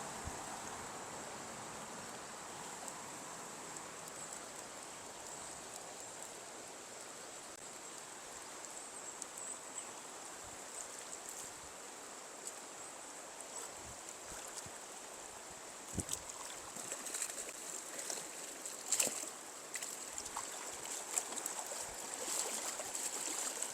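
Steady rush of a fast-running, high river. In the last third it is broken by scattered sharp clicks and knocks.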